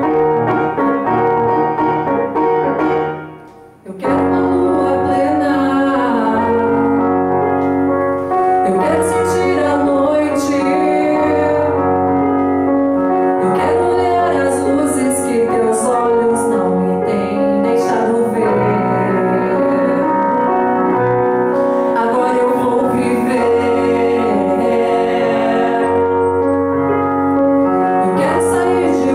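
A woman singing a ballad in Portuguese through a handheld microphone over piano accompaniment; the piano plays alone for the first few seconds, dips briefly, and her voice comes in about four seconds in.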